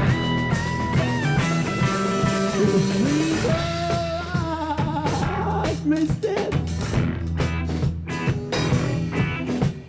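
Street band playing an upbeat rock-and-roll number on acoustic and electric guitars and a small drum kit, with a singing voice sliding up and down in the middle.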